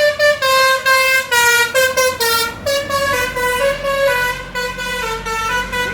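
Musical basuri bus horn playing a quick tune of short pitched notes that drift lower in pitch, cutting off suddenly near the end.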